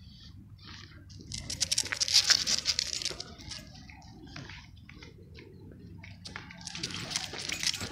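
Rapid light clicking and jingling from a leashed French bulldog walking on asphalt. It comes in two spells, the louder about one and a half to three seconds in and another near the end.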